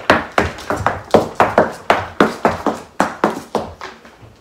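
Irish dance hard shoes striking a hard floor in a quick, even run of sharp clicks and stamps, about four or five a second, fading away near the end.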